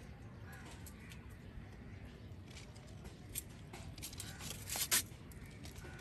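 Faint rustling and light clicks of handling among guava leaves and fruit, over a low steady background rumble; the loudest is a brief rustle about five seconds in.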